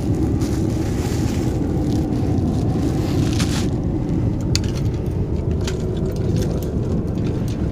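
Wind buffeting the microphone as a steady low rumble, with a few brief crunches and sharp clicks of handling or steps on debris.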